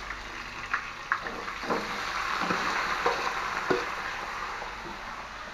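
Marinated meat sizzling as it is tipped from a metal basin into a hot wok, with a few sharp clinks and scrapes of a utensil against the basin. The sizzle swells about a second and a half in and eases toward the end.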